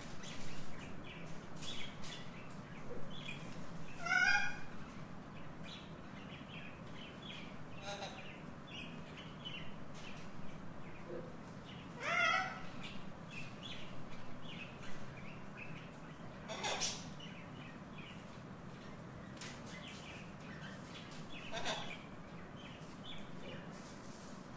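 Captive parrots and other birds calling in a room: scattered short chirps and clicks throughout, with louder rising squawks about four, twelve and seventeen seconds in, over a steady low hum.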